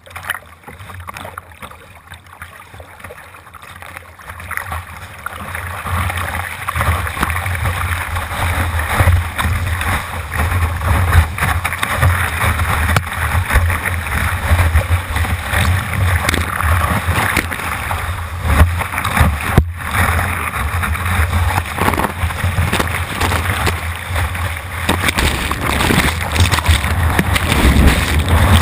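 Rushing, splashing water as a kayak surfs waves, heard close on a deck-mounted camera that is sprayed and swamped, with a heavy low rumble of water and wind buffeting the microphone. It builds over the first few seconds and then stays loud.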